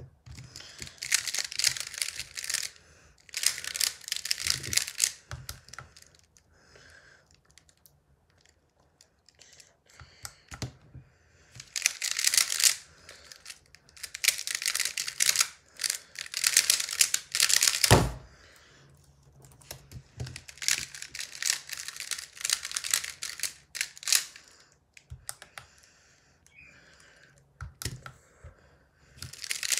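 Square-1 puzzle being turned fast: bursts of rapid plastic clicking and clacking, each lasting a second or few, with quiet gaps between them. A single sharp knock stands out about eighteen seconds in.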